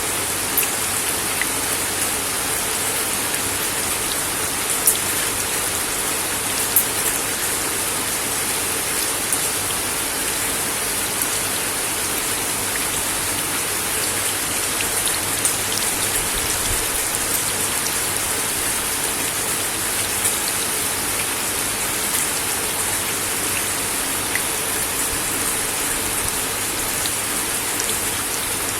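Steady rain falling on a wooden deck, an even hiss with scattered louder drops ticking on the boards.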